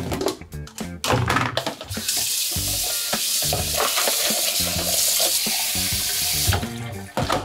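Food frying in a hot pan: a loud, even sizzle that starts suddenly about two seconds in and cuts off shortly before the end, with a few clicks and knocks before it.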